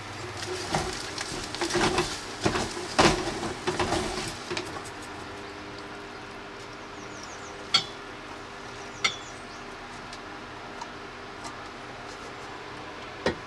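Cooking utensils clinking and scraping against a camping pot of fried rice on a portable gas stove, busy for the first four seconds or so. A steady low background follows, broken by a few single sharp clicks.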